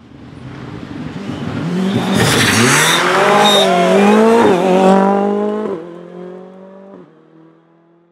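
Rally car at full throttle approaching, passing close by and pulling away: the engine note grows loud and noisy as it goes by, dips and climbs again several times with gear changes, then fades off toward the end.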